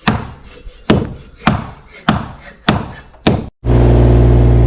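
A mallet striking green oak frame timbers: six sharp wooden knocks, about one every 0.6 s. A little after three and a half seconds it cuts suddenly to a steady engine drone.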